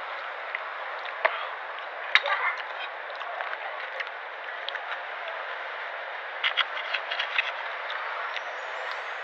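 Metal knife and fork clinking and scraping on a plate while cutting a croissant, a few sharp clicks here and there with a small cluster of them past the middle, over a steady background hiss.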